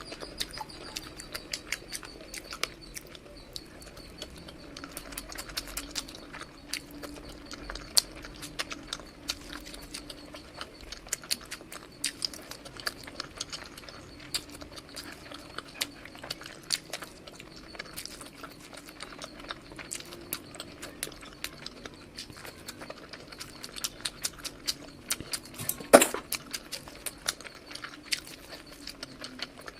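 Close-miked ASMR eating sounds: a person chewing junk food, with a dense run of quick wet mouth clicks and smacks. One sharper crack comes near the end.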